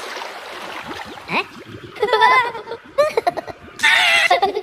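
High-pitched cartoon voices babbling in sing-song Minion gibberish. They start about two seconds in, after a soft noisy stretch and a quick rising glide.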